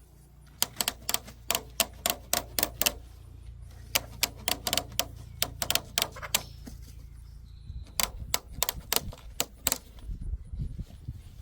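Sharp clicks in irregular quick runs, about two or three a second, a pause in the middle and a few more near the end: hand tools at work on wire hardware cloth.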